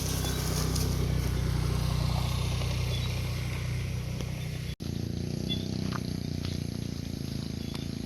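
A motor vehicle's engine runs steadily with a low hum, cut briefly about halfway through, with a few faint knocks.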